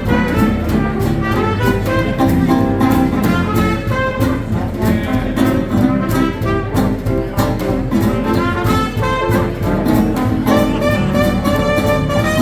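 Swing jazz band playing an instrumental passage, brass horns carrying the tune over upright bass and a steady beat.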